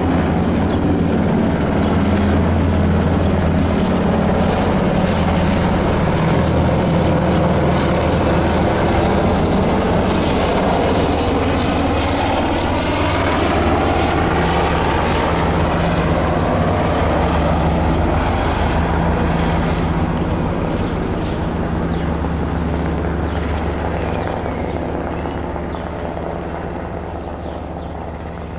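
Sikorsky UH-60M Black Hawk twin-engine helicopter flying overhead, its main rotor chopping over the turbine noise. The sound is steady, then fades over the last several seconds as it moves away.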